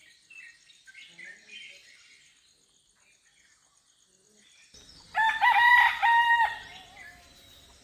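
A rooster crowing once, a loud pitched call lasting about a second and a half, about five seconds in. Small birds chirp faintly before it.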